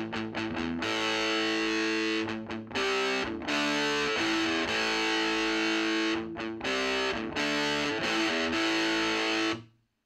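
Electric guitar played through the overdrive channel of an Ever Play RG-60 solid-state 2x12 combo amp: distorted chords, a few short choppy strums at the start, then held chords that stop abruptly near the end.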